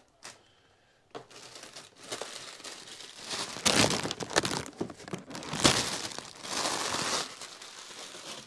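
Cardboard boxes being handled, slid and set down on a table: a run of scraping and rustling, loudest in the middle, with a sharp knock about two thirds of the way through.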